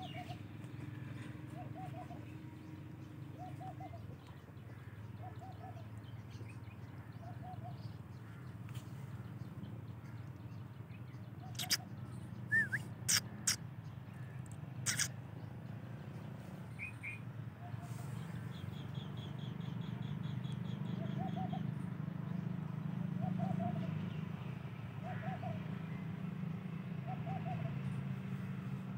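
A bird repeating a short low call about every second and a half over a steady low hum. Five sharp clicks come around the middle, and a rapid high trill follows a few seconds later.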